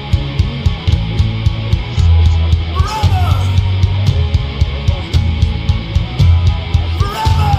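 Rock song playing with distorted guitars, heavy bass and a steady, driving drum beat, in an instrumental stretch between sung lines.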